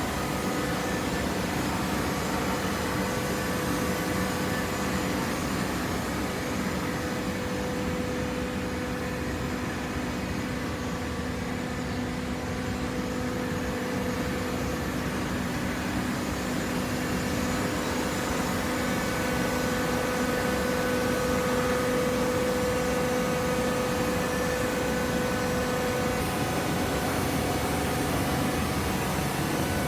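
Vertical hydraulic baler's motor and hydraulic pump running steadily: a continuous hum with a steady whine.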